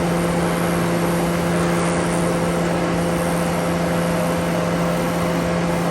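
Heavy machinery running steadily: a constant mechanical hum with an even hiss over it, with no change in pitch or level.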